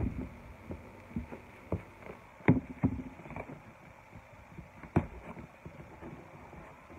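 Scissors and fingers working at the taped cardboard box: scattered taps and scrapes, with two sharper knocks about two and a half and five seconds in.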